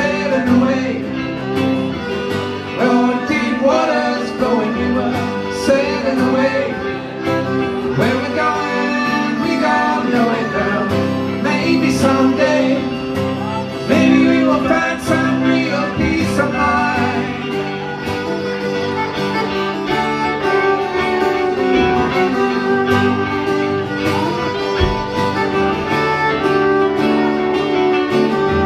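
Live acoustic band playing an instrumental break: fiddle over strummed acoustic guitar and picked banjo, in a country/bluegrass style.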